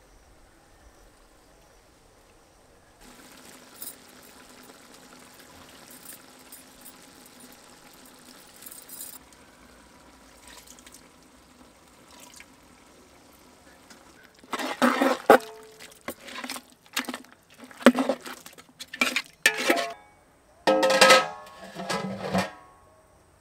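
Liquid poured from a clay bowl into a large aluminium cooking pot, then a run of loud metal clanks and knocks, some ringing briefly, as the pot's aluminium lid is handled and set down on it.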